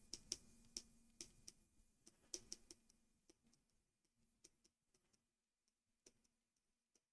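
Faint, irregular clicks of a stylus writing on a pen tablet, several in the first three seconds, then only a few scattered ones.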